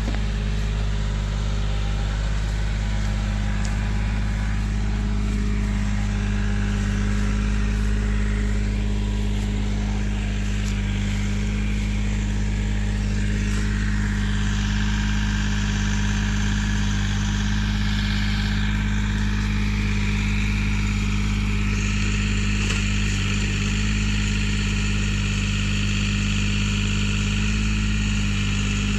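An engine running steadily at constant speed, with a higher hiss and whine that comes in about halfway through and grows stronger near the end.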